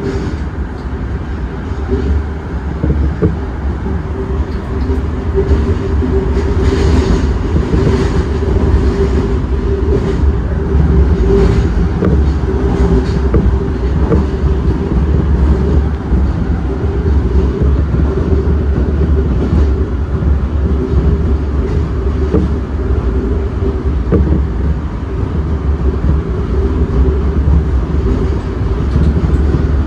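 Osaka Metro 30000 series subway train running in the tunnel, heard from the front: a steady loud rumble of the wheels on the rails with a steady whine over it, and a few faint clicks about a third of the way in.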